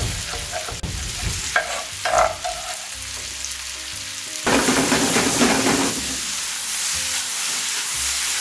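Bell peppers and onions sizzling in a stainless sauté pan over a gas flame, with a few knife chops on a wooden cutting board in the first two seconds. About four and a half seconds in the sizzle gets louder and busier as chopped parsley and basil are scraped into the pan and the pan is tossed.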